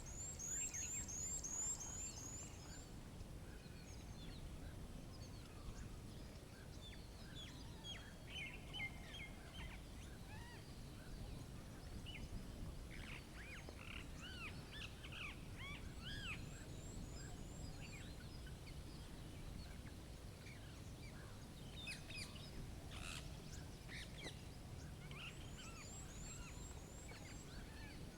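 Several small birds chirping, one repeating a quick series of high down-slurred notes three times, over a faint steady low rumble.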